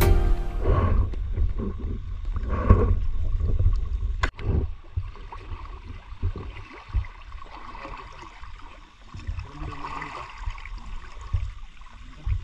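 Shallow sea water sloshing and gurgling around a wading spearfisher. The sloshing is heavier for the first four seconds, with one sharp knock about four seconds in, then it turns to lighter, scattered splashes.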